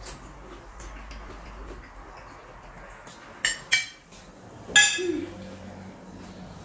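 Cutlery clinking against plates and jars during a meal: a few sharp clinks that ring briefly, two close together about three and a half seconds in and a louder one near five seconds, over low room noise.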